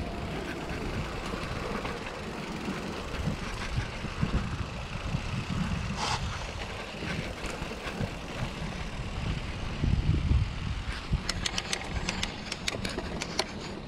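Ride noise of a bike on a rough trail: a steady low rumble, a louder jolt about ten seconds in, and a run of sharp clicks and rattles near the end.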